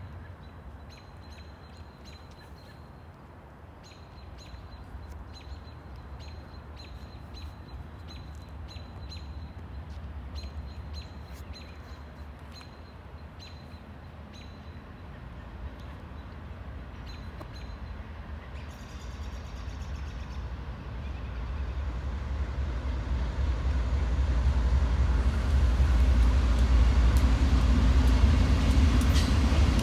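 A small bird chirps repeatedly in short high notes over a low background rumble. From about two-thirds of the way in, the deep rumble of Pan Am Railways' GE B40-8 diesel locomotives builds steadily louder as they approach, and is loudest near the end as the lead unit passes.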